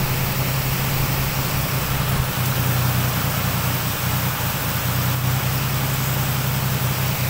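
Heavy rain pouring steadily: a dense, even hiss with a steady low rumble underneath.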